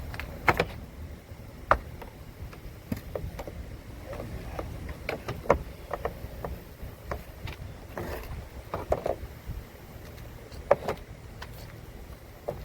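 Scattered knocks and clicks at uneven intervals, some sharper than others, over a steady low rumble.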